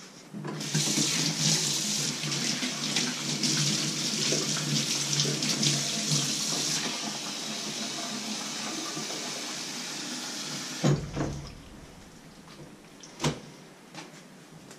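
Kitchen tap running into a stainless-steel sink while a sponge is rinsed under the stream; the splashing is brightest for the first several seconds, then softer. The water stops with a knock about eleven seconds in, and a single sharp click follows a couple of seconds later.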